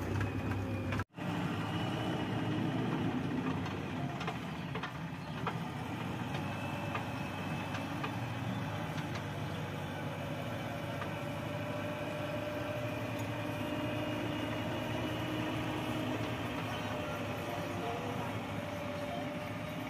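Diesel engine of a JCB 3DX backhoe loader running steadily at the worksite, with a faint steady whine over the hum. The sound cuts out briefly about a second in.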